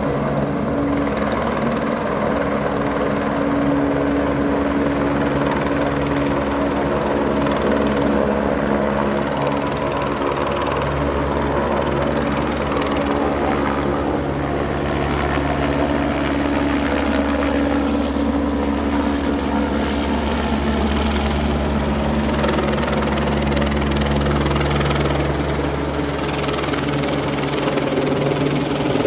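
Helicopter running steadily, its rotor and engine holding a nearly constant pitch.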